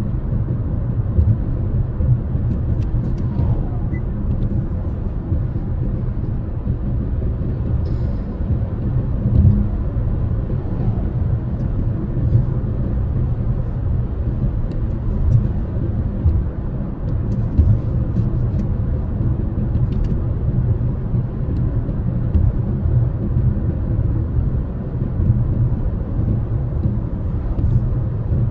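Road noise inside a car's cabin at highway speed: a steady low rumble of tyres and engine, with a few faint ticks now and then.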